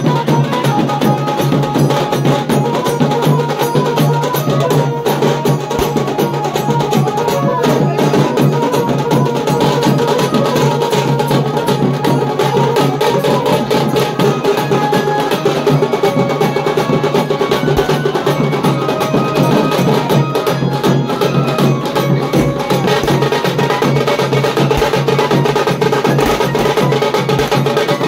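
Tasa drum band playing: tasa and bass drums beaten with sticks in a fast, unbroken rhythm.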